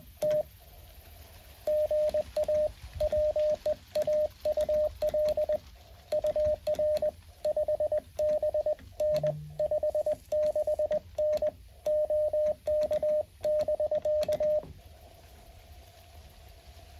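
Morse code from a Mountain Topper MTR-4B QRP transceiver: a single steady tone keyed on and off in dots and dashes, pausing briefly near the start, then stopping near the end to leave a faint receiver hiss.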